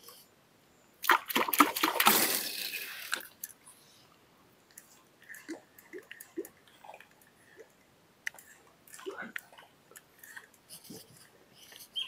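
A loud splash in the river about a second in, lasting about two seconds, followed by faint scattered drips and small sounds.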